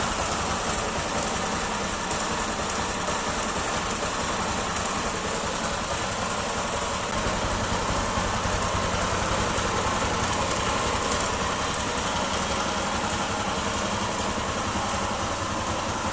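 Honda CG Titan's single-cylinder engine idling steadily after years of standing, with a noise in the engine that the owner thinks may be a valve still slightly stuck.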